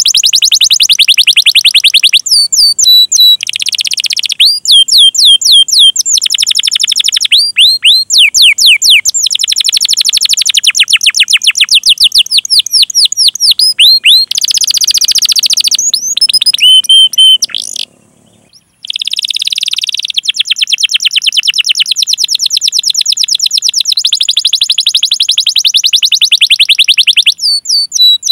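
Domestic canary singing a long, loud song of fast rolling trills and repeated chirps, phrase after phrase, with one short break about two-thirds of the way through.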